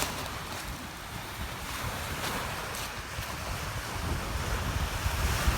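Wind buffeting the microphone in uneven low rumbles over a steady wash of waves on the lake shore, with the gusts growing stronger near the end.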